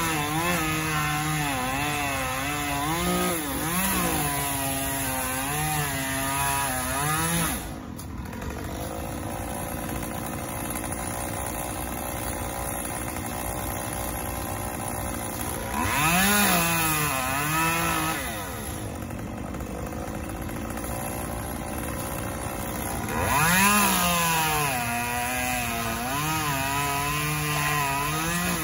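Gas chainsaw cutting into a palm tree. Its engine runs under load with a wavering pitch for about seven seconds, then drops to idle. It revs up twice more for shorter cuts, about two and four seconds long, near the middle and toward the end.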